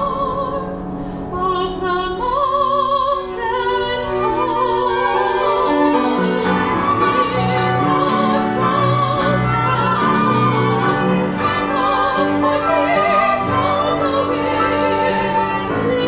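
A mezzo-soprano singing with a wide vibrato over a chamber ensemble of piano, winds, strings and double bass; the low strings and piano fill out the sound from about six seconds in.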